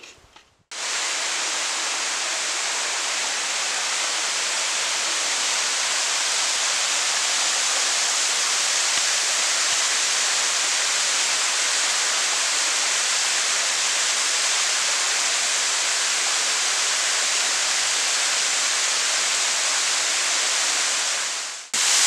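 Small waterfall pouring down a rock face into a shallow pool: a steady, even rushing splash that starts abruptly just under a second in.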